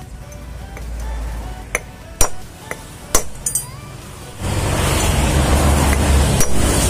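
Metal parts clinking: a few sharp separate clinks and knocks. About four and a half seconds in, a louder steady rushing noise with a low hum comes in.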